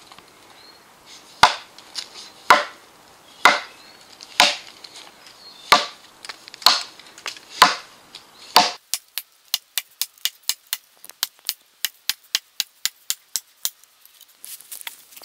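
Axe chopping into a log: eight heavy blows about a second apart, then a quicker run of lighter knocks, about four a second. The angled cuts are knocking out thick wood chips.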